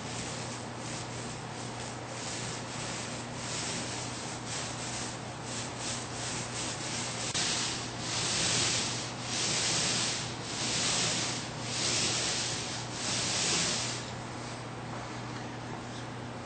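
Paint roller rolling wet paint over a wallboard, a series of hissing strokes. The strokes are short and quick at first, then come as several longer, louder strokes of about a second each before stopping about two seconds before the end. A faint steady low hum runs underneath.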